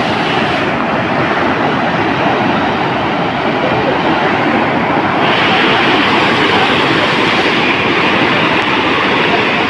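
Muddy floodwater rushing fast through a swollen stream channel: a loud, steady rushing noise that turns hissier about halfway through.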